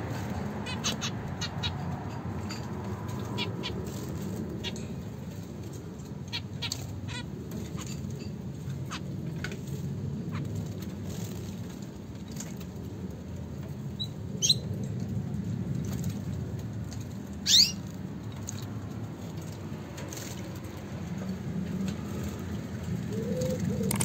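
Zebra finch bathing in a shallow dish of water, with scattered small splashes and wing flutters. There are a few short chirps, and one loud, quick downward-sweeping bird call about seventeen seconds in, over a steady low background noise.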